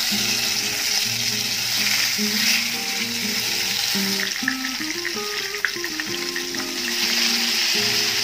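Stuffed brinjals sizzling steadily as they fry in hot oil in a wok, with a few sharp ticks near the middle, over background music.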